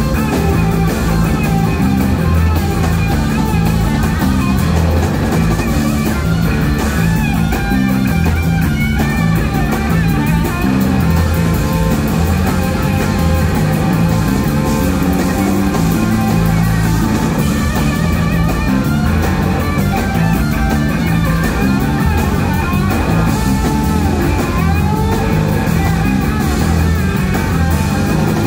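Live rock band playing an instrumental jam: an electric guitar lead with gliding, bending notes over a repeating bass line and drum kit.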